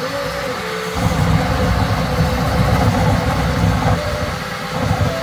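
Bambu Lab X1C 3D printer printing at its fast ludicrous speed: the stepper motors whine in quick rising and falling tones as the toolhead darts about, over the steady rush of the cooling fans. About a second in, the motor tones give way to a louder low rumble for a few seconds, and they return near the end.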